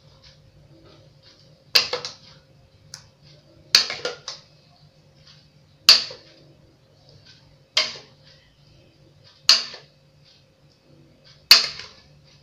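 Six sharp knocks about two seconds apart as a spoon and a plastic blender jug are tapped to shake blended shaved ice out into serving bowls, over a faint steady hum.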